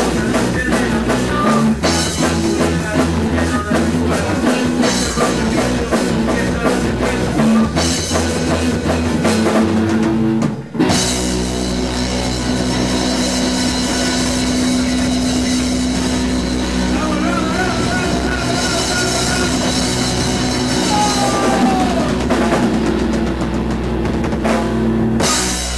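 Rock band playing live on electric guitars and drum kit. About ten seconds in the band cuts out for an instant, then comes back on long held chords under a wash of cymbals, and the song stops right at the end.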